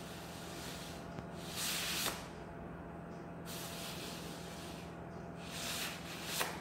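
Sheets of paper sliding against each other and the board, several soft rustling swishes over a faint steady hum.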